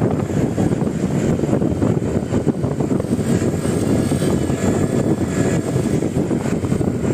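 Steady low rumble of a bus engine and road noise, with no horn sounding.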